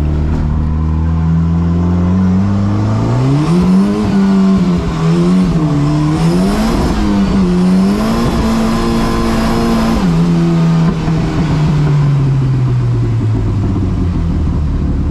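Big-turbo Volvo wagon's engine heard from inside the cabin: running at low revs, then revving up about three seconds in, the pitch swinging up and down several times, held high for a couple of seconds, then dropping at about ten seconds and winding down slowly as the car slows.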